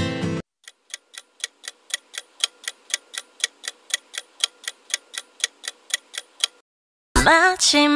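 Countdown clock ticking sound effect, a steady train of sharp ticks about four a second, running for about six seconds. Pop music cuts off just after the start, and pop music with singing comes in shortly before the end.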